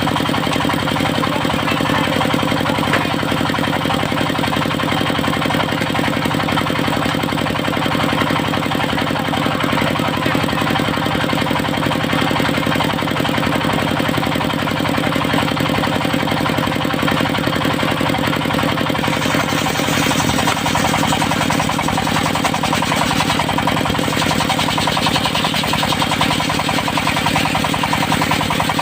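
Engine of a portable circular-saw sawmill running steadily under power. About two-thirds of the way through the sound shifts, with more high-pitched noise coming in.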